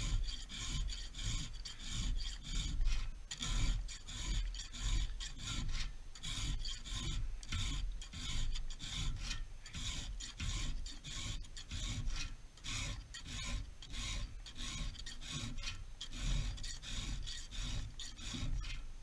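Round chainsaw file rasping across the cutters of a 54cc chainsaw's chain in a steady series of hand strokes, a little over one a second: a dull, worn-out chain being sharpened.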